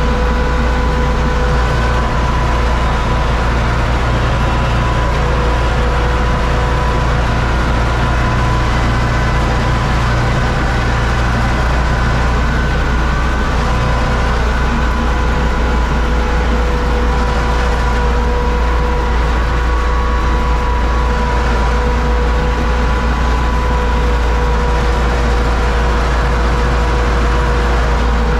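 Universal U650 tractor's four-cylinder diesel engine running steadily under load inside the cab while harvesting corn with a tractor-drawn Zmaj Zemun 223 corn picker. It is a constant deep engine drone with a steady whine on top.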